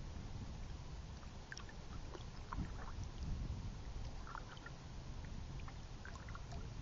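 Kayak gliding on calm water: a steady low rumble of wind on the microphone, with faint scattered little ticks and drips.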